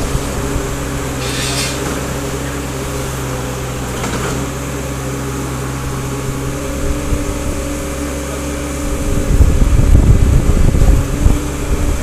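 Komatsu PC30-3 mini excavator's three-cylinder Komatsu diesel engine running steadily while the boom and arm work the bucket up and down. About nine seconds in, the sound turns louder and rougher, with an uneven low rumble.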